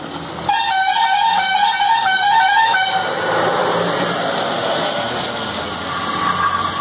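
A horn sounds one steady note for about two and a half seconds, starting about half a second in. It gives way to a rough, noisy din as the racing Kambala buffalo pair splashes through the flooded mud track.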